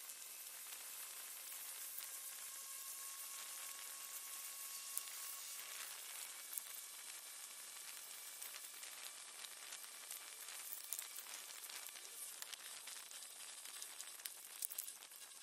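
Faint steady hiss of a ride in a moving vehicle, with scattered small clicks and crackles and a faint high whine through the first half.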